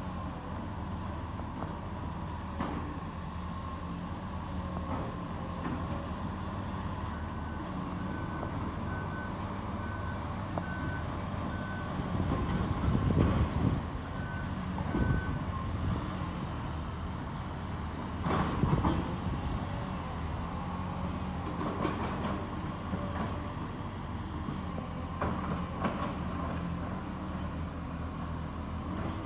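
Heavy demolition machinery running steadily. A reversing alarm beeps repeatedly for several seconds in the first half, and louder crunching crashes of debris come about halfway through and again about two-thirds of the way in.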